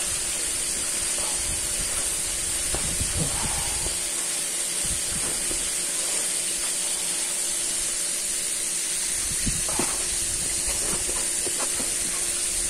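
Hot oil frying in a pan, a steady sizzling hiss with no break, with a few faint soft rustles of a gloved hand working flour in a plastic bowl.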